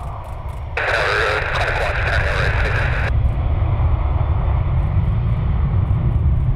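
Low rumble of jet airliner engines, growing louder about a second in, with a hiss that cuts in and out over about two seconds near the start.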